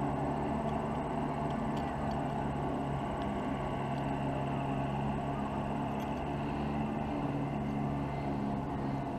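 Steady low mechanical hum, even throughout, with a few faint clicks over it.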